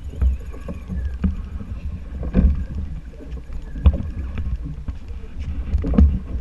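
Wind buffeting the camera microphone over water washing along a small boat's hull at sea, a steady low rumble broken by three short thumps.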